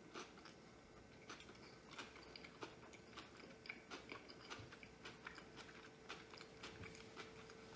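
Faint close-up chewing of a sushi roll: soft, irregular wet mouth clicks, with a faint steady hum underneath.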